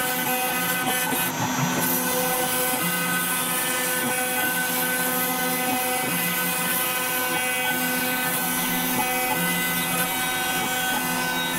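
CNC router spindle running at about 20,000 rpm, its 2 mm diamond-cut carbide end mill cutting 2 mm FR4 glass-fibre board with a steady whine over the hiss of the dust extraction. A lower hum comes and goes every second or two.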